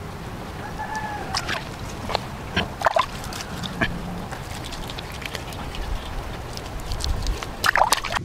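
Chickens clucking: a short, curved, pitched call about a second in, then scattered short clucks, with a quick cluster near the end.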